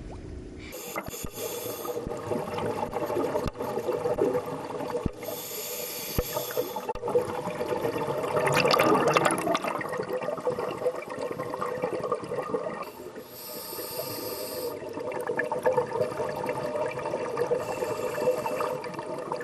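Underwater recording of a diver breathing through an air-hose regulator: a hiss every few seconds on each breath, with a louder rush of bubbles about halfway through, over a faint steady hum.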